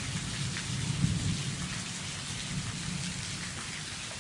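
Steady rain falling, with a low rumble of thunder that dies away about halfway through.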